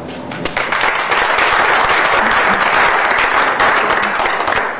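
Audience applauding: a burst of hand-clapping that starts about half a second in and stops just before the end.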